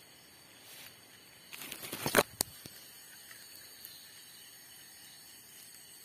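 Night outdoor ambience with a faint steady insect hiss; about a second and a half in, a quick run of rustling clicks ends in two sharp cracks near the middle.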